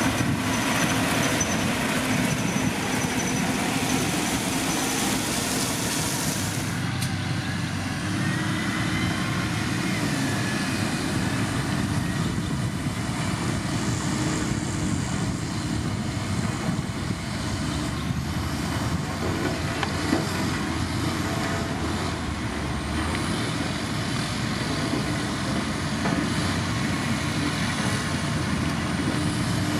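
Heavy diesel road-building machinery running steadily, a continuous engine noise; the upper hiss changes about seven seconds in.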